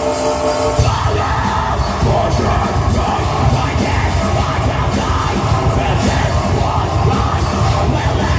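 Live heavy rock band playing loud through a PA: sustained held notes ring at first, then the full band with drums, bass and distorted guitars comes in hard about a second in.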